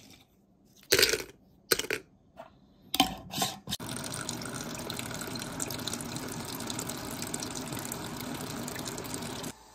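Roasted sword beans dropping into a plastic tea-infuser basket, clattering in about five short bursts over the first few seconds. Then a steady stream of water pours onto the beans in the basket to brew sword bean tea, and it stops abruptly near the end.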